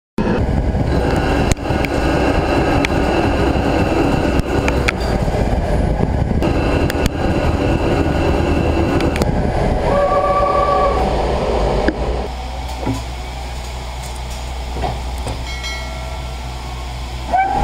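CNC mill-turn machine turning a steel crankshaft blank with a carbide insert: a dense, steady mechanical rumble of the cut, with a brief whine about ten seconds in. About twelve seconds in it drops to a quieter low hum of the machine running.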